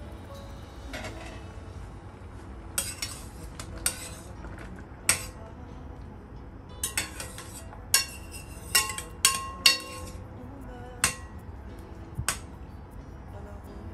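Metal spoon clinking and scraping against the side of a stainless steel saucepan while stirring. There are about a dozen irregular sharp clinks, starting about three seconds in, and some ring briefly.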